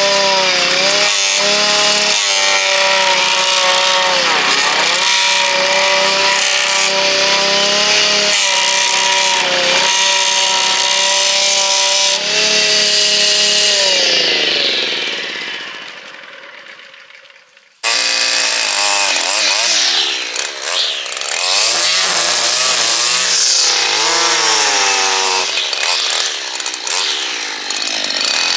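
Petrol lawn edger running with a steady engine note that dips briefly as the blade bites into the turf edge, then falls in pitch and fades away. After a cut about two-thirds in, a petrol line trimmer runs, its engine revving up and down over and over as it trims the edge.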